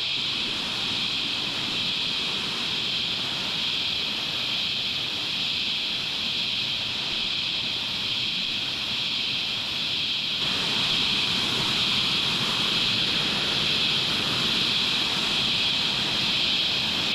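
Dense chorus of cicadas, a steady, unbroken high shrilling, over a low rushing noise that gets louder about ten seconds in.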